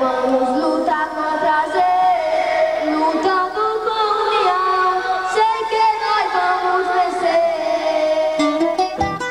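Boys singing a song into microphones, their voices amplified, with held notes that glide from one pitch to the next.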